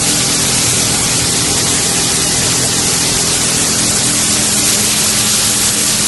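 HDPE pipe shredding and washing line running: a steady loud hiss with a low motor hum underneath.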